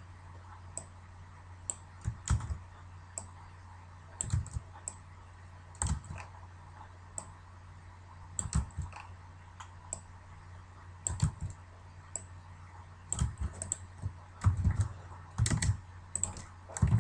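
Computer keyboard typing in short, scattered runs of keystrokes with pauses between them.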